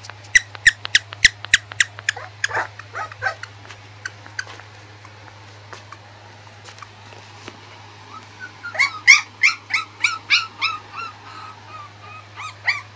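Corgi puppy whimpering in short high squeaks: a quick run in the first two seconds and a longer run of whimpers about nine seconds in.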